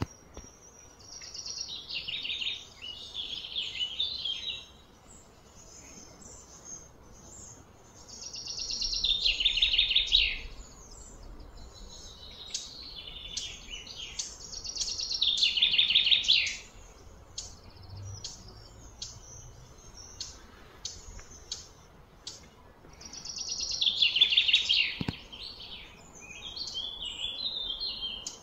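High-pitched, buzzy chirping calls from small animals come in about five bouts of two to four seconds. Each bout swells in loudness and breaks off suddenly, with scattered sharp ticks in the gaps.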